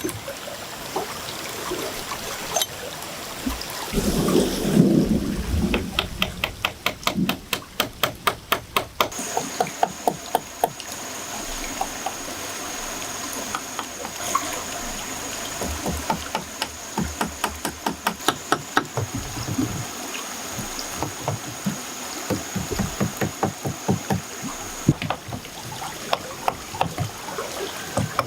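Water trickling under runs of quick, sharp knocks or scrapes, about four or five a second, from some handwork, with a steady high thin tone through the middle and a dull thump about four seconds in.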